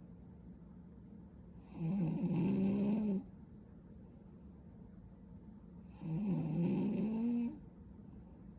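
A young woman snoring in her sleep: two snores about four seconds apart, each lasting about a second and a half, with a pitched hum that dips and then rises.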